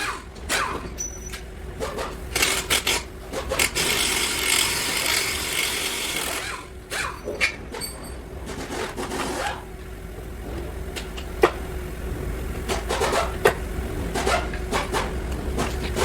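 Scraping and rubbing from tools working on car parts, with scattered sharp knocks, the loudest about eleven and a half seconds in and again near thirteen and a half seconds. A faint steady hum runs underneath.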